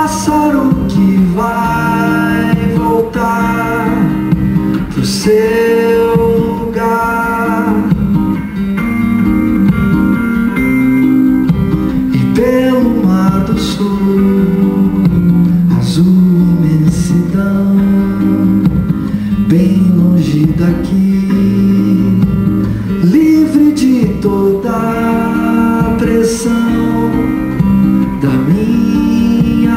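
Two guitars playing an instrumental passage live: a fingerpicked nylon-string classical guitar together with a hollow-body electric guitar, over a steady low note.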